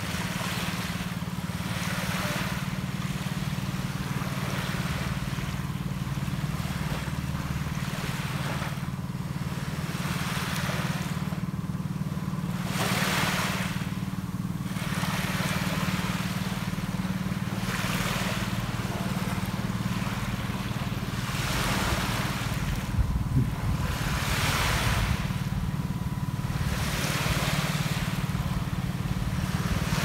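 Sea waves breaking and washing up a sandy beach, the surf swelling and fading every few seconds, over a steady low rumble.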